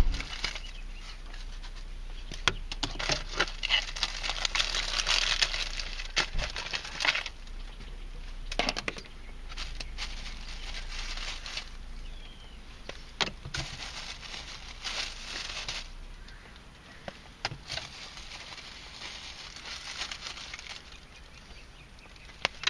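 Marshmallow bunny candies tossed onto a car dashboard and a plush monkey: scattered light taps and soft thuds, with stretches of crinkly rustling in between.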